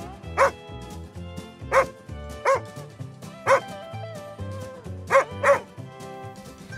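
A dog barking six times, singly and once as a quick pair near the end, over light background music.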